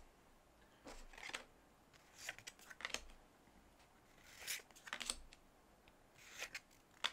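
Paper Bowman baseball cards being slid one at a time off the front of a pack stack to the back: a soft card-on-card swipe and flick about four times, faint.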